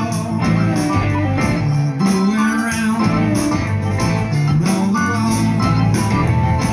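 Live band playing a blues song through a PA: electric guitar, keyboard and drums, with cymbals keeping a steady beat about twice a second.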